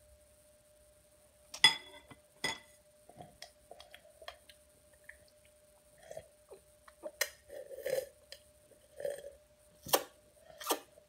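A metal spoon clinking sharply twice against a ceramic bowl, then a young child's sucking, gulping and swallowing noises, with small clicks, while drinking from a plastic sippy cup.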